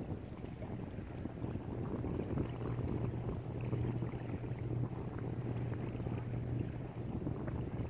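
Wind rumbling on the microphone, with a steady low drone underneath that is strongest through the middle.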